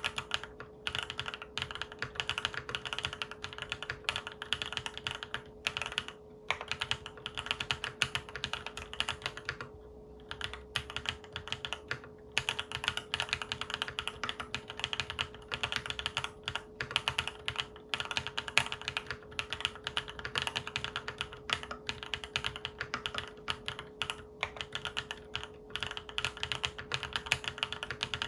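Typing test on a Monsgeek M3 full-aluminium tenkeyless mechanical keyboard with linear Akko Cream Yellow Pro switches and Akko keycaps: fast, continuous keystrokes, pausing briefly a few times.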